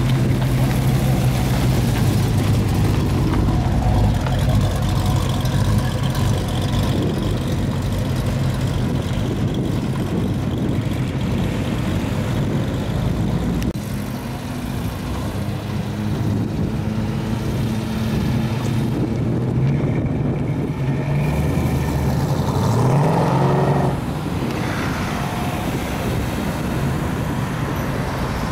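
1968 Ford Mustang fastback's engine running as the car pulls away at low speed, a steady deep note. Later it is heard from behind with road and traffic noise, and it rises in pitch as the car accelerates about three quarters of the way through.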